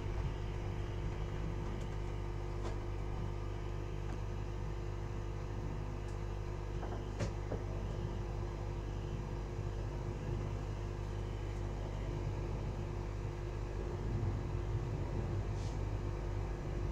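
Steady whir and hum of a small electric motor or fan on the repair bench, with a few faint light clicks of a tool as the glued iPhone screen is pried at.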